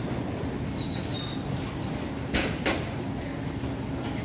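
Airport baggage reclaim conveyor belt running with a steady low rumble and faint squeaks, and two sharp knocks a moment apart about halfway through as a suitcase comes down through the flap onto the belt.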